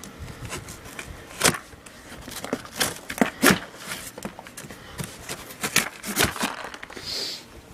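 Cardboard shipping box being slit open with a small knife and handled: irregular scrapes, crackles and knocks, with loose contents rattling inside.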